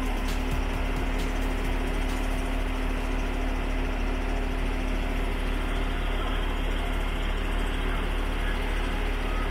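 Diesel engine of a truck-mounted concrete boom pump running steadily, a low even drone with a steady hum above it.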